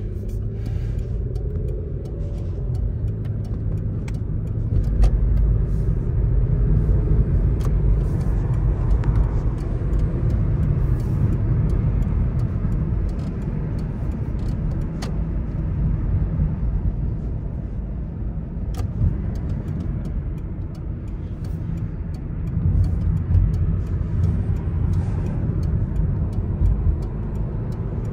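A car on the road: a steady low rumble of tyre and engine noise while driving, with a few faint clicks.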